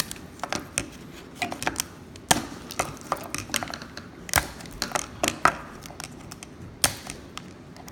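Cut sections of a factory plastic speaker mount's lip being pulled back by hand and snapped off, a series of sharp, irregular cracks and clicks like teeth breaking off.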